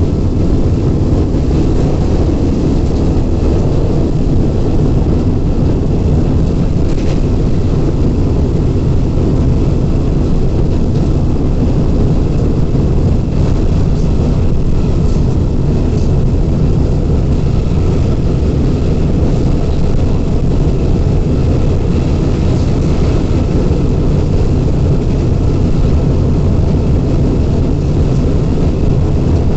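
Canadian-built Class M4 diesel-electric locomotive running steadily at speed, its engine drone mixed with the rush of the moving train.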